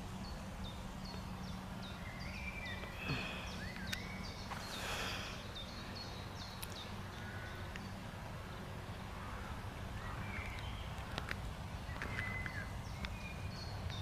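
Quiet open-air ambience: a low steady hum and rumble, with small birds chirping in short, repeated falling notes, most of them in the first half.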